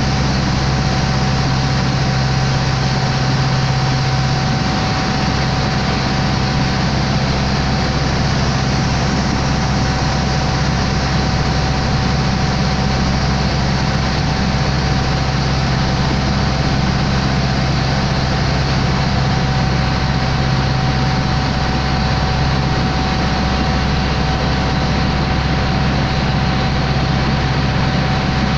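Water taxi's engine running steadily while under way: a loud, unchanging low drone with a thin steady whine above it, over a rushing hiss.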